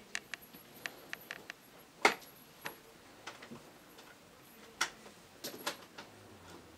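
Dry leaves crackling in scattered sharp clicks as a kitten shifts on them, the loudest crackle about two seconds in and another near five seconds.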